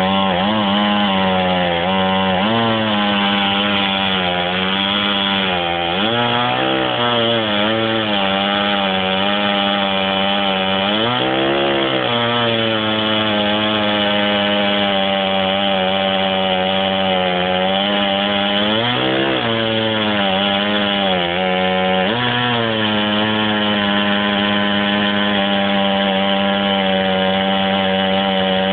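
Two-stroke chainsaw mounted in a chainsaw mill, running at high revs while ripping along a log. The engine note sags and recovers several times as the chain is loaded in the cut.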